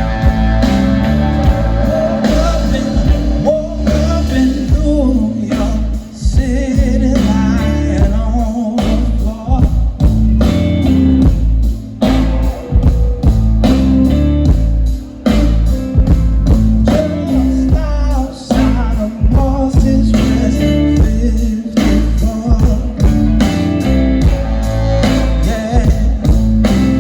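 Live blues band playing, with electric guitar over a strong bass and drum beat and a man singing.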